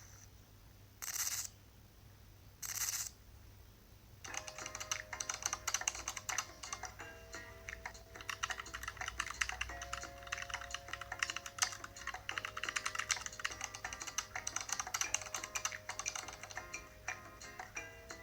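Two short bursts of noise, then about four seconds in a run of rapid computer-keyboard typing clicks begins over a sustained tone that steps to a new pitch every couple of seconds.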